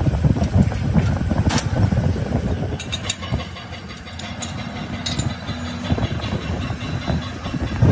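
Uneven low rumble with a few sharp metal clicks, about a second and a half, three and five seconds in, as a truck flywheel is seated and clamped in a lathe's jaw chuck.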